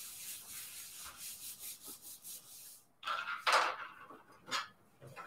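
Hands rubbing and patting a paper sheet flat onto a sticky cutting mat: a soft papery rubbing, with a few louder brushes about three seconds in.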